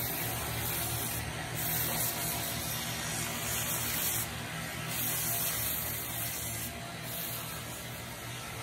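Electric belt grinder running with a steady low hum. A harsh hiss of steel on the abrasive belt comes each time a pair of pliers is held to it, in about four passes of one to three seconds each.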